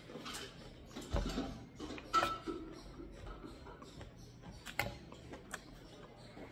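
Steel spoon clinking and scraping against a metal plate while scooping up chatpat (spiced puffed rice), with a short ringing clink about two seconds in and a few sharper clicks near the end.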